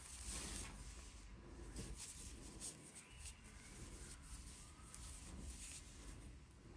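Faint rustling and soft ticking of a crochet hook and yarn being worked, stitch by stitch, in single crochet.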